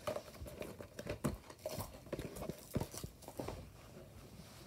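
Handling noise: irregular light knocks and rustles as cardboard toy boxes are moved about and set down on a soft bedspread.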